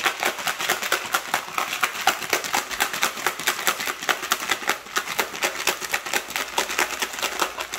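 A bottle of whey protein drink being shaken hard by hand, its contents knocking against the bottle in a fast, even rhythm of about six strokes a second.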